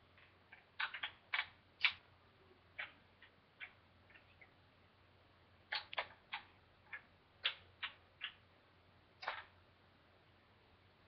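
Wooden kendama balls clacking onto the cups and spike: sharp, irregular clicks in quick runs of two to four, with pauses between.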